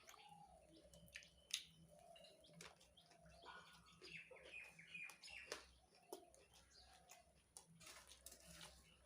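Faint crunching and mouth clicks of someone chewing puffed rice (muri) with ghugni, with small birds chirping in the background.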